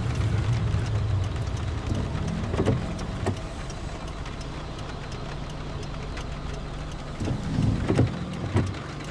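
Car cabin noise while driving on a wet road: a steady low engine and road rumble with tyre hiss. A few brief knocks come through about three seconds in and again near the end.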